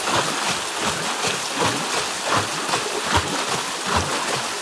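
Water-powered traditional rice-pounding mill (dhenki) running on stream water: a steady rush and splash of flowing water with a low knock repeating at an even pace, a little under a second apart, as the pounder works automatically.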